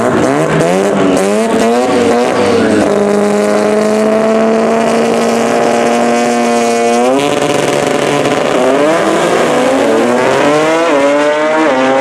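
Two drag racing cars on the start line revving in steps, then holding their engines at a steady high rev for a few seconds. About seven seconds in they launch, and the engine pitch climbs and drops back through gear shifts as they accelerate down the track.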